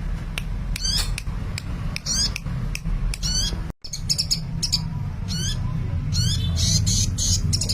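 Sunbird singing busily: quick high chirps, short trills and sweeping whistled notes in fast succession over a steady low hum, broken by a brief cut just before the middle.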